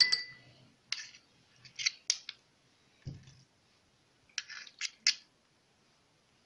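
A metal spoon pressing and scraping sticky quince paste into a silicone mould, making a run of short scrapes and clicks about a second apart, with one soft thud about three seconds in.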